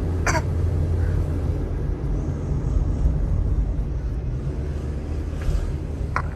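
Steady low vehicle rumble, with a brief sharp sound near the start and another near the end.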